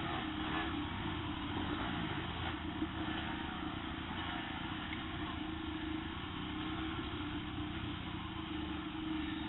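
Dirt bike engine running at a steady pitch while riding a rough trail, heard from a camera mounted on the bike, with wind and trail noise mixed in.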